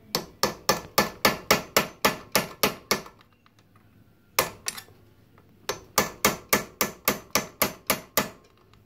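Hammer rapidly striking a flat-head screwdriver held as a chisel on a motorcycle drive-chain link, about six sharp metal-on-metal blows a second in two runs with a pause and two single blows between. This is the pin of a stretched, slack chain being chiselled out to shorten it.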